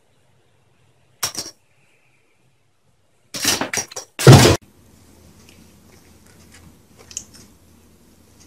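A cat scrambling about in a low wooden cupboard: a brief clatter, then about two seconds later a rattling clatter and a heavy thump, the loudest sound. Faint room noise with a few small ticks follows.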